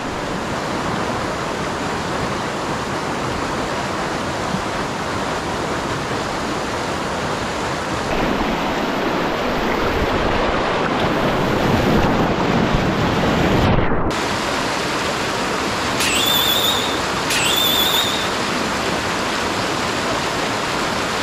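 Mountain stream water rushing steadily over rock, a little louder from about 8 to 14 seconds in. Twice near the end, a brief high wavering tone sounds over the water.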